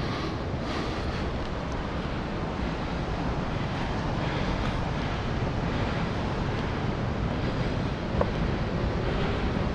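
Steady wind rumbling and buffeting on the microphone, with a brief click about eight seconds in.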